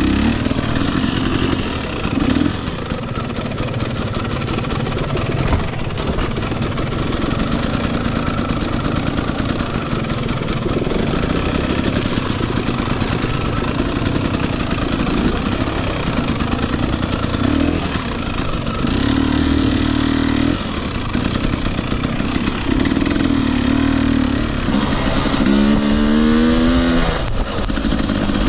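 Husqvarna TE250i fuel-injected two-stroke dirt bike engine running under way, its pitch rising and falling with the throttle, over the clatter of the bike on rough ground. Near the end it revs up sharply three times in quick succession.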